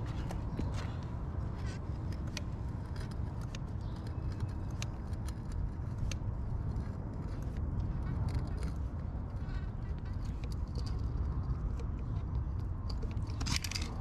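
Manual caulking gun being squeezed as it lays a bead of MasterSeal NP1 sealant into a brick-to-concrete joint: irregular light clicks from the trigger and rod, about one a second, with a brief louder scrape near the end. A steady low rumble runs underneath.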